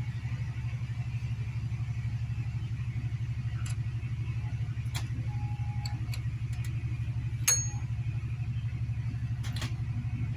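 Small motorcycle engine idling with a steady, fast, even beat. A few light metallic clicks sound over it, the loudest a sharp clink with a brief ring about two-thirds of the way through.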